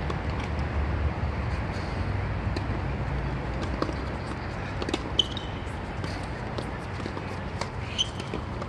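Scattered sharp taps and clicks of court play, the loudest about five seconds in and again near the end, over a steady low outdoor rumble.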